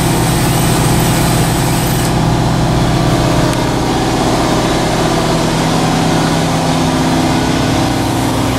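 Shop air compressor's motor running with a steady hum. For about the first two seconds there is a high hiss of compressed air as the 24 V solenoid valve opens the air assist to the laser head.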